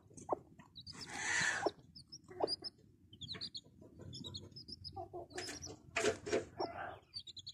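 Broody hen clucking with her chicks peeping, many short high cheeps scattered through, and two louder rough bursts, one about a second in and one around six seconds in.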